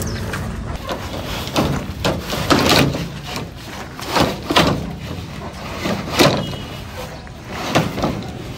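Irregular hollow knocks and thuds of large plastic pipes bumping against each other and the trolley as the stacked load is shoved into place, about six in all, the loudest a little under 3 seconds in and again about 6 seconds in.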